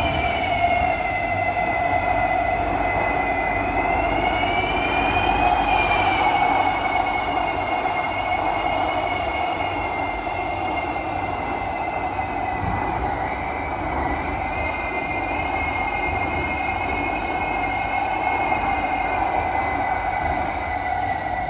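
SMRT C151B metro train running, heard from inside the carriage: a steady running rumble with a loud, continuous high-pitched screech over it. The screech wavers a little in pitch a few seconds in and again past the middle.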